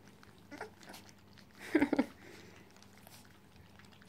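Cocker spaniel puppies eating from food bowls: faint chewing, smacking and small clicks. One short, louder voice-like sound comes just under two seconds in.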